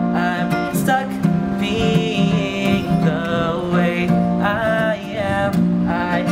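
Song played on acoustic guitar, with a singer's voice holding and bending notes over it.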